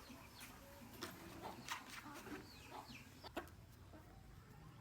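Chickens clucking faintly, a cluster of short calls and sharp clicks between about one and three and a half seconds in.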